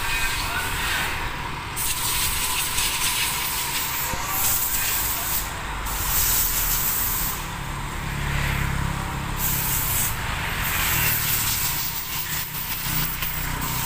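PA800 mini electric wire-rope hoist running steadily as it lowers the forks of a stacker lift, mixed with a steady hiss that comes and goes.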